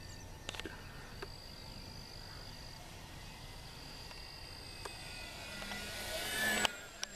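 The 950Kv brushless electric motor and propeller of a ParkZone F4U-1A Corsair RC plane, running on a nearly dead battery, whine as the plane makes a low pass. The sound swells from about five seconds in and cuts off sharply just before the end. A steady high insect trill runs underneath.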